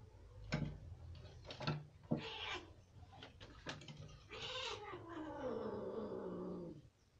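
Two cats fighting: a few sharp knocks in the first couple of seconds, short hisses, then one cat's long yowl that falls steadily in pitch over about two and a half seconds and breaks off near the end.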